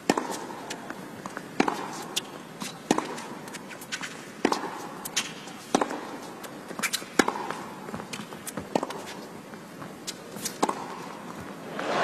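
Tennis rally: sharp racket strikes on the ball about every one and a half seconds, with softer ball bounces between them, over a low murmur from the arena crowd.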